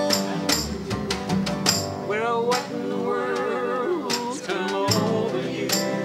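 Acoustic country-folk band playing: strummed acoustic guitars, a dobro, an upright bass and a drum struck with a stick, with a wavering, sliding melody line from about two to five seconds in.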